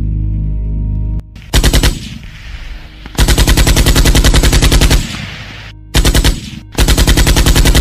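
Automatic gunfire: rapid, evenly spaced shots in four bursts, the longest about two seconds. It is preceded by a short low music drone that stops about a second in.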